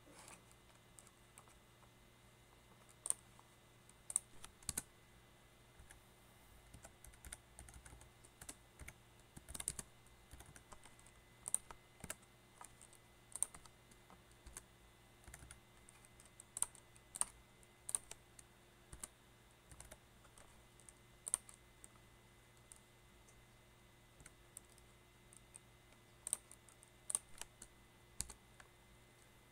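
Computer keyboard typing: keystrokes come in short irregular runs with pauses between.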